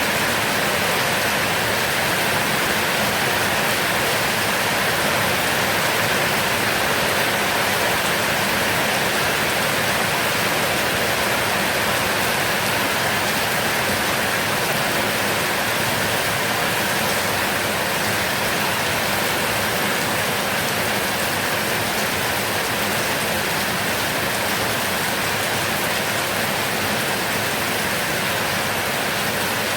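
Heavy rain falling steadily in a dense, even hiss, with no thunder.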